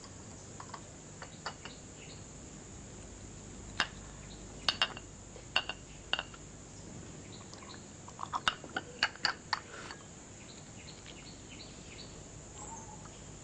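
China cup clinking against its saucer: scattered light, sharp clicks, bunched about four seconds in and again around eight to nine seconds, over a steady high hiss.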